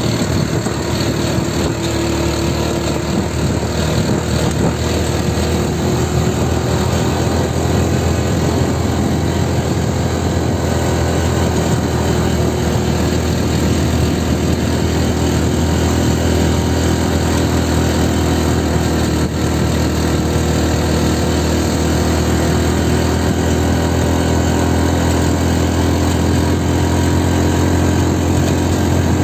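Small motorcycle engine running steadily under way, with an even, unchanging note.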